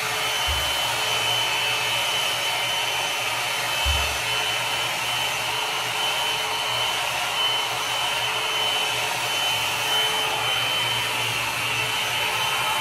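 Philco Soft Beauty 1200 W hot air brush blowing steadily as it is worked through a section of wet hair: a steady fan rush with a high, even whine. It cuts off at the very end.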